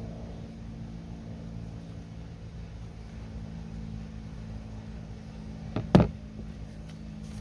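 Steady low hum in the workshop, broken about six seconds in by a sharp double knock as the metal exhaust pipe parts are handled and fitted together.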